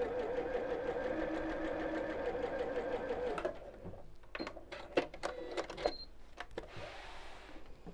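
Electric sewing machine stitching steadily at a small stitch length, then stopping about three and a half seconds in. A few sharp clicks and two brief high beeps follow, then a soft fabric rustle as the work is pulled out from under the foot.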